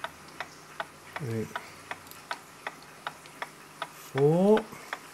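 Vintage mechanical wall clock movement ticking steadily on a test stand, nearly three ticks a second, its escapement running in beat. A man's voice makes two short sounds, one about a second in and one near the end.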